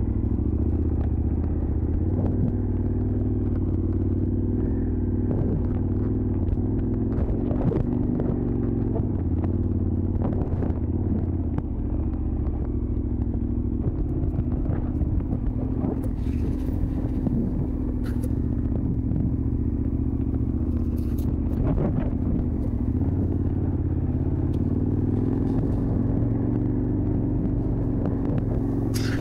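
A large adventure motorcycle's twin-cylinder engine runs steadily at low speed on a dirt track. Scattered short knocks and clicks sound over it.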